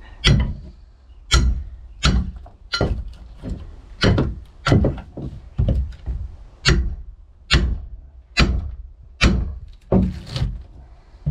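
Repeated hammer blows, about fifteen at a steady pace of a little over one a second, chipping the rotten wooden core out of a fibreglass boat transom.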